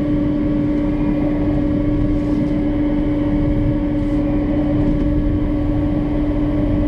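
Aircraft de-icing truck running, heard from inside its raised boom cab: a loud, steady mechanical drone with a constant hum as the engine and fluid pump work while de-icing fluid is sprayed onto the airliner.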